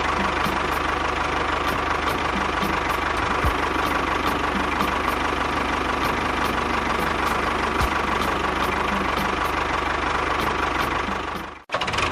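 Small engine of a DIY mini tractor running steadily, with a light regular ticking over the drone.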